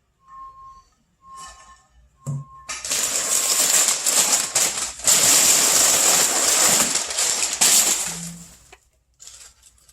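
Packaging being handled and rummaged through during an unboxing: loud, continuous rustling and crinkling for about six seconds. It starts a few seconds in and dies away near the end. Before it come a few faint short beeps about a second apart.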